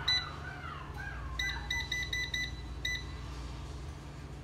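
Ambiano air fryer's touch control panel beeping as its buttons are pressed. It gives a single short high beep, then a quick run of about six beeps as the timer is stepped up, then one more.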